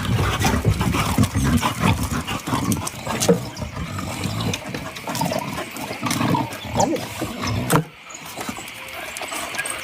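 A dog growling in rough, irregular bouts that ease off about eight seconds in.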